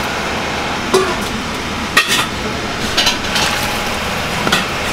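A large aluminium pot of noodles at a hard boil over a burner, giving a steady rushing noise. A few sharp knocks and clinks of utensils against the pot cut through it, about once a second.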